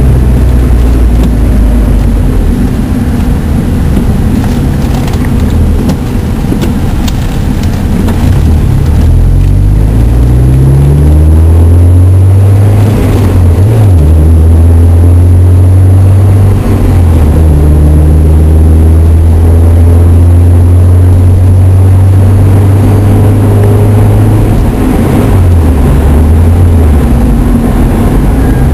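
Mazda Miata's four-cylinder engine through an aftermarket Vici dual exhaust, heard from inside the cabin while driving. The engine note rises as the car accelerates, then holds a steady drone at cruising speed with a couple of brief dips, and wavers up and down near the end.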